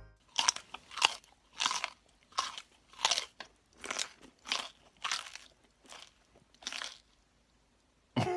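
A person chewing crunchy food close to the microphone, about a dozen loud crunching chews at roughly two a second that stop near the end: a Foley imitation of an animal eating.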